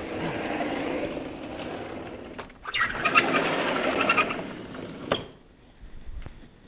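Sliding chalkboard panels being pushed along their tracks: two runs of rumbling and rattling, the second louder and starting with a brief high squeak a little under three seconds in.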